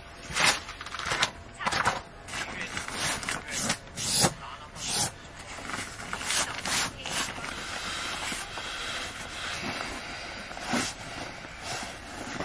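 Rustling and scraping of camping gear being handled and packed, with a string of short sharp rustles in the first half, then a steadier rustle as a sleeping pad is pressed and rolled up.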